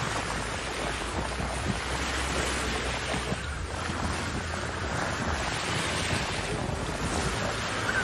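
Sea waves washing on the shore, a steady rushing noise, with wind buffeting the microphone.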